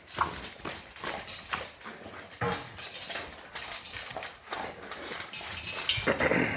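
Labrador retriever eating from its dinner bowl: quick, irregular chomping and crunching of kibble, bread and chicken. A short pitched sound comes near the end.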